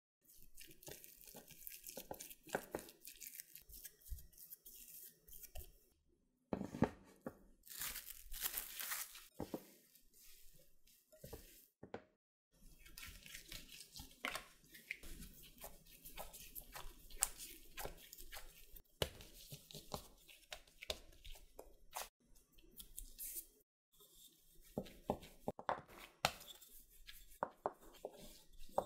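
Close-up food-preparation sounds: many light clicks with crinkling and tearing noises as food is handled, in several short takes that cut off abruptly.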